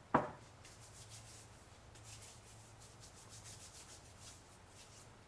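A sharp knock just after the start, then quick rubbing strokes in bunches of several a second: a rag wiping a surface.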